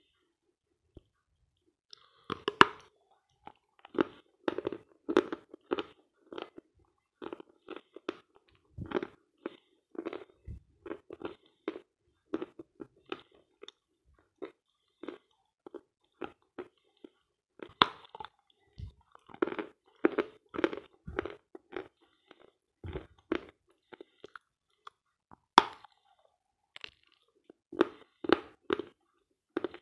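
Dry chalk ('Sloyka' chalk, dense and soft to bite) being bitten and chewed: runs of quick dry crunches in clusters, with a few sharper, louder bites and a short lull about halfway through.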